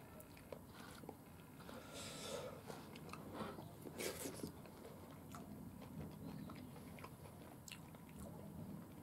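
Faint chewing and crunching of a whole deep-fried small horse mackerel (mamezaji karaage), crisp enough to eat bones and tail included, with the loudest crunch about four seconds in.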